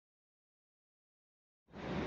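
Dead digital silence, then about a second and a half in, a steady rushing background noise of the platform fades in quickly.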